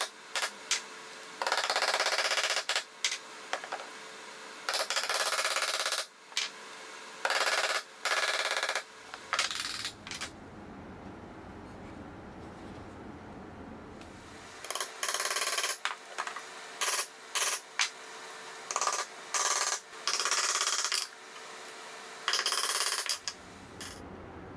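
Impact driver driving screws into plywood parts in a series of short bursts, each about a second long, with a pause of a few seconds near the middle.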